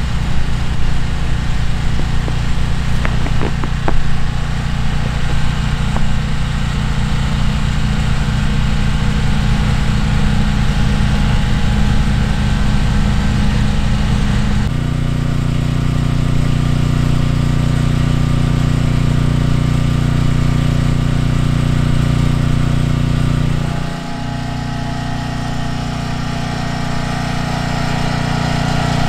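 A small engine running steadily with a low, pulsing hum. The hum changes abruptly about halfway through and drops a little near the end.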